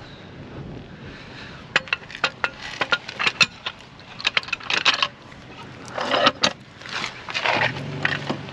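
Metal tools and a floor jack clinking and clattering as they are handled and set down, a run of sharp clinks followed by a few scraping, rustling moves.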